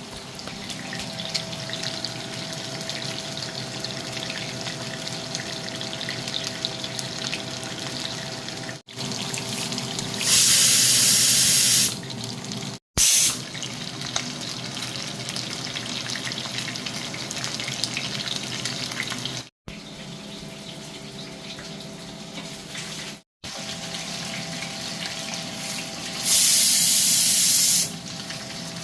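Kitchen tap water running into a sink, with two louder gushes of about a second and a half each, one near the middle and one near the end, over a steady kitchen hum. The sound drops out briefly at several cuts.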